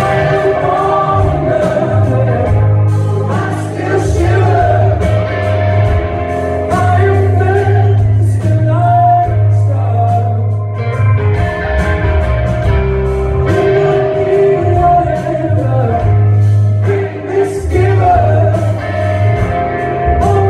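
A live rock band performs a song with singing, backed by electric guitars, drums and keyboard, heard from the audience.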